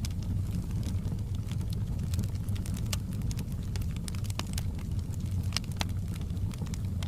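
Wood fire burning in a fireplace: scattered sharp crackles and pops over a steady low rumble of the flames.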